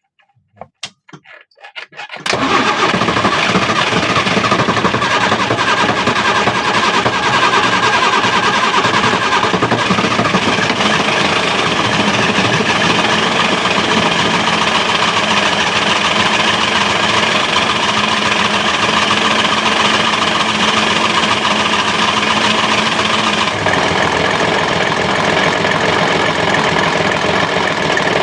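Boat engine, gearbox in neutral, starting at once about two seconds in with no long cranking, then running steadily: an easy start.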